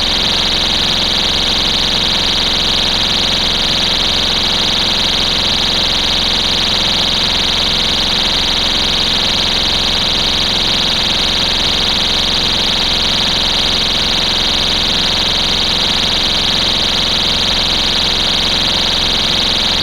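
STI Stopper pull-station cover's built-in piezo alarm horn sounding continuously: a loud, steady, high-pitched electronic tone. The horn signals that the cover has been lifted.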